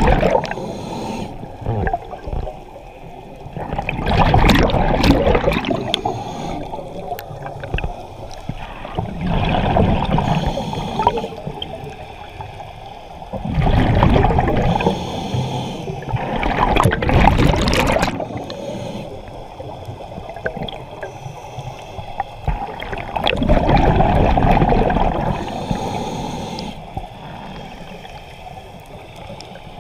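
Scuba breathing underwater through a regulator: loud surges of exhaled bubbles rumbling and gurgling every few seconds, with a quieter wash of water between.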